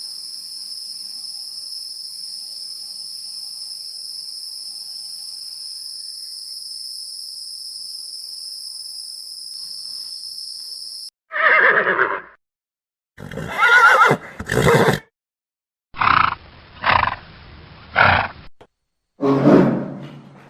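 A steady high-pitched buzz, then after about eleven seconds a series of loud animal calls: one call, a longer call, three short calls in a row, and another near the end.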